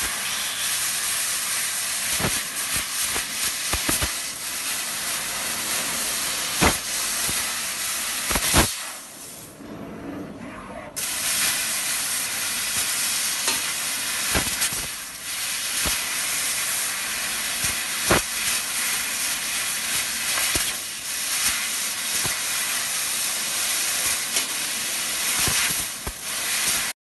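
Laser cutting machine cutting a steel tube: a steady, loud hiss from the gas jet and sparks at the cutting head, with sharp cracks now and then. The hiss stops for about two seconds near the middle, then starts again.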